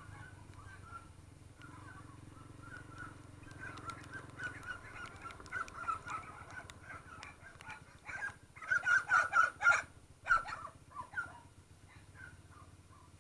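Birds calling: chirps that build into a run of loud, harsh squawks about eight to ten seconds in, then thin out. A low, steady hum underneath fades out a few seconds in.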